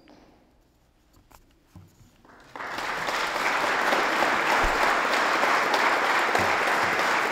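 Audience applause starting abruptly about two and a half seconds in and holding steady, after a short lull with a few soft knocks.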